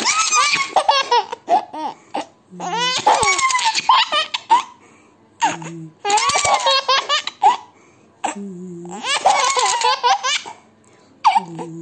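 Baby laughing in repeated high-pitched bouts, four of them with short pauses between, a fifth starting near the end.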